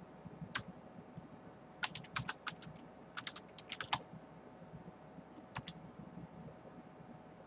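Computer keyboard being typed on: short bursts of sharp keystroke clicks with pauses between them, ending with two last keystrokes about five and a half seconds in.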